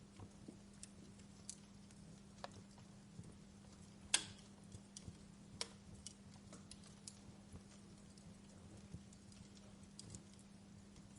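Fire crackling: scattered small pops and snaps at irregular intervals, with one louder pop about four seconds in, over a faint steady low hum.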